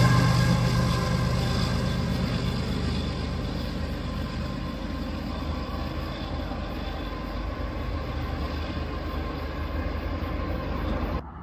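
BNSF freight train with a diesel locomotive passing and pulling away: the low engine drone and rail rumble fade steadily, then cut off suddenly near the end.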